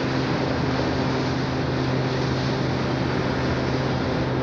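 Steady low drone of a tug's diesel engine moving a large tank barge through the canal, over a constant rush of water along the hull and wind on the microphone.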